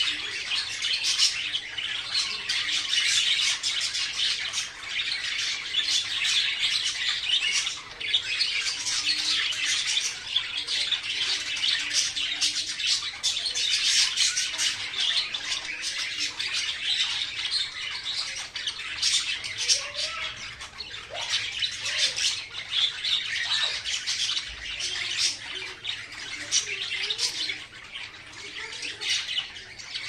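Young green parakeet calling in a rapid, almost unbroken run of short high squawks.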